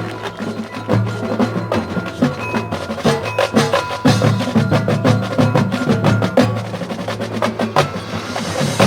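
Marching band music led by its percussion section: fast, busy drum strokes with pitched mallet percussion over sustained tones, swelling into a cymbal wash near the end.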